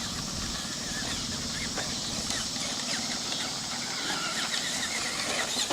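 Traxxas Bigfoot RC monster truck running steadily over dirt: the whine of its brushed electric motor and geartrain with tyre and chassis noise, its rear shock held on with zip ties.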